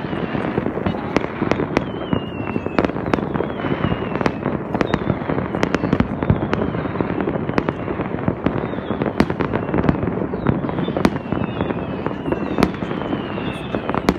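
Fireworks going off all over a city at once: a continuous dense crackle and rumble of many bangs, near and distant, with several whistles falling in pitch.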